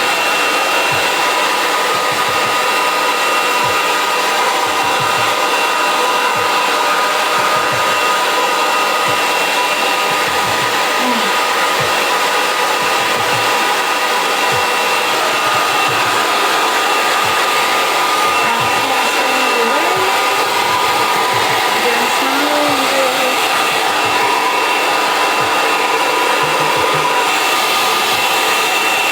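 Hair dryer blowing steadily, a loud even rush of air with a high motor whine.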